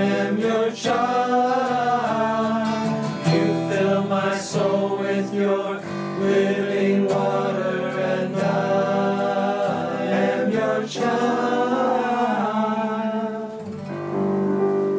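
Hymn sung by men's voices, accompanied by acoustic guitar and digital piano. The singing stops about a second before the end, leaving the instruments holding a chord.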